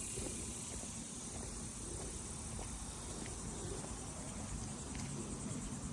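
Insect chorus outdoors: a steady high-pitched trilling that takes on a quick, even pulse near the end, over a low rumble.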